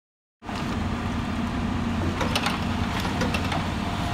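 Diesel engine of a demolition excavator running steadily, with a few light knocks of debris near the middle.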